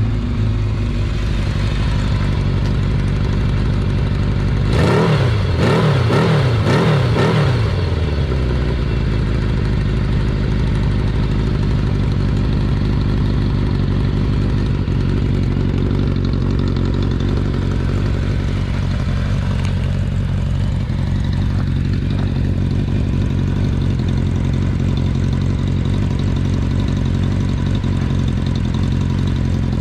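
Kawasaki Z500FX air-cooled inline-four engine idling steadily, blipped a few quick times about five seconds in and settling back to idle. It runs evenly with no abnormal noise.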